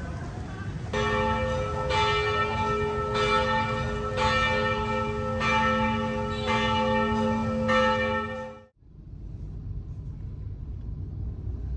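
A large bell ringing repeatedly, about one stroke a second, each stroke ringing on into the next; it cuts off suddenly about nine seconds in, leaving a low rumble.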